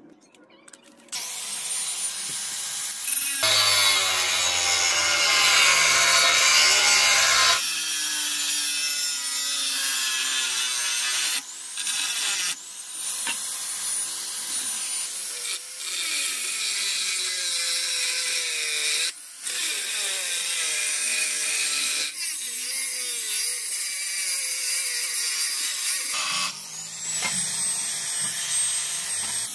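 Angle grinder cutting into the steel core of a used diamond granite-cutting saw blade, in several short takes. At the start of some takes the motor's whine rises to speed and then holds steady. The cutting is loudest in a stretch a few seconds in.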